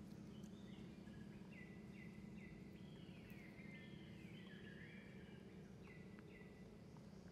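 Faint bird song: a run of short high notes repeated several times a second, some of them sliding downward, over a low steady background hum.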